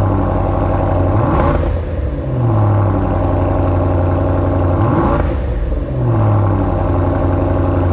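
Range Rover P530's 4.4-litre BMW twin-turbo V8 idling through a QuickSilver Sound Architect stainless steel valved exhaust, revved twice: the pitch climbs quickly about a second in and again about five seconds in, then sinks back slowly to idle each time.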